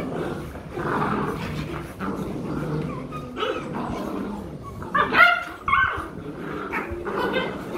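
Rottweiler puppies play-fighting, with rough growling throughout and high yips and barks; the loudest, sharp yelps come about five seconds in.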